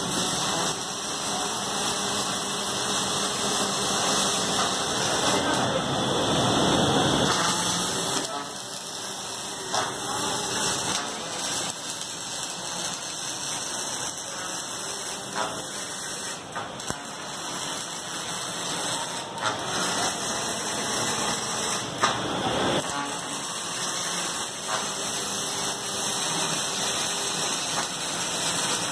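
Robotic MIG welding line at work: steady factory machinery noise with the hiss of the welding arcs, a little louder for the first eight seconds or so.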